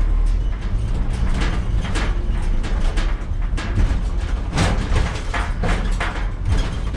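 Scrap metal being handled: a run of irregular metallic clanks and knocks over a steady low rumble.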